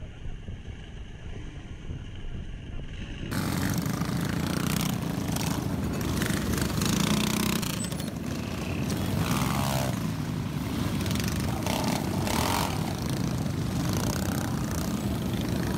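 Small mini-bike motorcycle engines running, getting suddenly louder about three seconds in.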